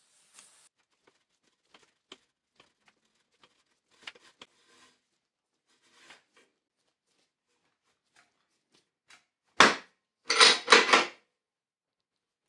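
Bicycle bottom bracket thread taps being turned by hand in a steel frame's bottom bracket shell: faint ticks and clicks of the tool, then near the end a loud burst of metal-on-metal grating in three or four short strokes with a thin high squeal, as the taps cut the threads.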